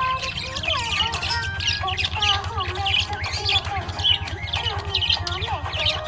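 Pet budgerigars chirping and warbling, many quick overlapping chirps and short rising and falling notes with no pause, over a steady low hum.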